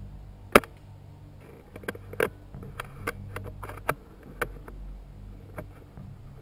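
Irregular sharp snaps and crackles of twigs and dry leaf litter: one loud snap about half a second in, then a scatter of smaller cracks over the next few seconds.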